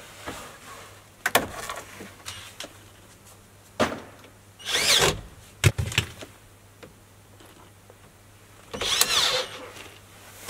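Hard plastic armrest console parts being handled and fitted into a metal frame: a few sharp knocks and clacks, and two louder scraping rubs of plastic sliding against plastic, about five and nine seconds in.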